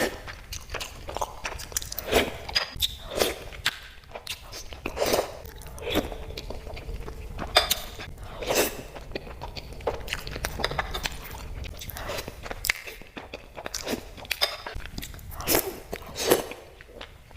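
Close-miked eating: crunchy bites and chewing of sweets, an irregular run of crisp crackles and clicks.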